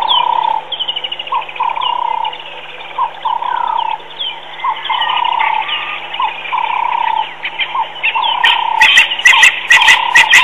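Birds calling: repeated mid-pitched notes with higher chirps in between, joined about two thirds of the way in by a fast, sharp clicking chatter that grows louder.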